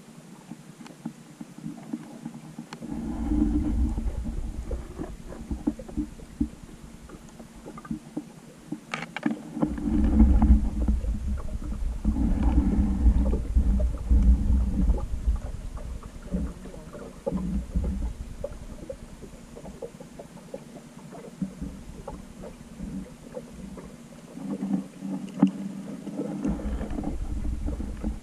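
Muffled rumbling and sloshing of water moving around a GoPro in its underwater housing. It comes in uneven swells lasting several seconds, with scattered small knocks.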